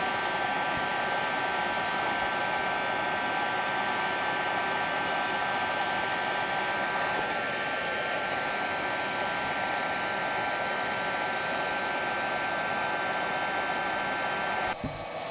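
Hot-air heat gun blowing steadily, with a constant whine over the rush of air, heating plastic to soften it for bending. It stops suddenly near the end.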